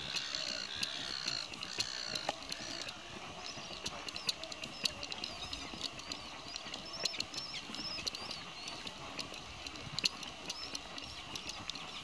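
A flock of gulls calling: many short, high, arched calls overlapping one another, with scattered sharp clicks.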